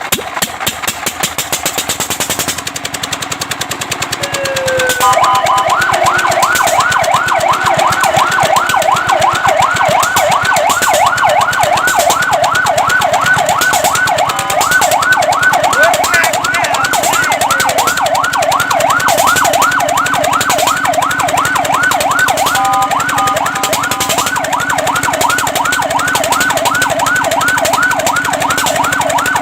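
Fire truck siren sounding a fast yelp, its pitch sweeping up and down a few times a second. It starts about five seconds in after a short chirp, and twice breaks briefly into steady tones before going back to the yelp. A fast, even pulsing runs underneath, and alone before the siren starts.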